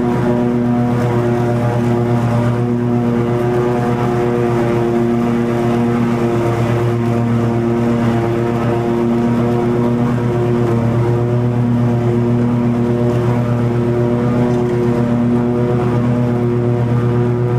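Toro TimeCutter 50-inch zero-turn riding mower running steadily at cutting speed, its engine a constant even drone with the mower deck cutting long grass.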